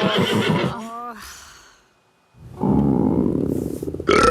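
A cartoon unicorn whinnying, a quavering call that trails off with a short falling whinny about a second in, then a brief silence. In the last second and a half a low, rumbling sound swells up.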